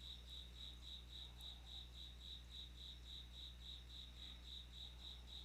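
Faint insect chirping: a high, even trill of about five pulses a second, over a low steady hum.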